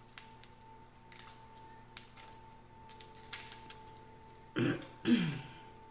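Faint cracks and snaps of boiled shellfish shell being peeled by hand, then about four and a half seconds in two short, louder throat sounds from the eater, the second falling in pitch.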